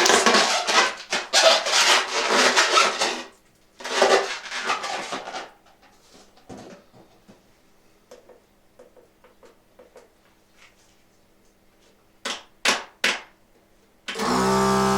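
Inflated latex balloons being handled: the rubber rubs and rustles loudly for a few seconds, again briefly around four seconds in, then small faint clicks and three short sharp sounds about twelve to thirteen seconds in. Near the end an electric balloon pump starts running with a steady hum.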